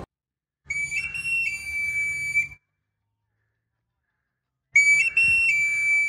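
A street knife sharpener's whistle, blown twice with a pause between. Each time it is a high note that steps up briefly, drops back and is held for about two seconds. It is the call that tells households a knife and scissors sharpener is nearby.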